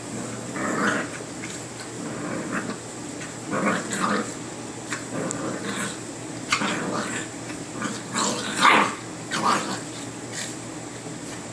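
Boxer dog growling in short, irregular bursts while play-fighting with a cat.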